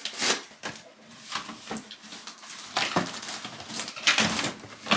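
Cardboard toy box being pulled open by hand: a string of short rustles, rips and knocks of cardboard and paper.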